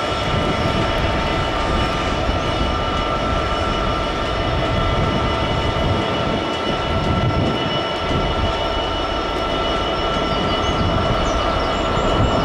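A pair of SNCF BB 75000 class diesel-electric locomotives approaching under power: a continuous engine rumble with several steady whining tones over it, getting slightly louder near the end.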